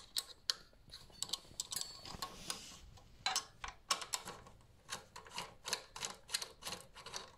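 Light metallic clicks and ticks of a 5 mm hex key (L wrench) working the bolts of a bicycle disc brake caliper: sparse at first, then coming about three a second from about three seconds in, as the key is turned in short strokes.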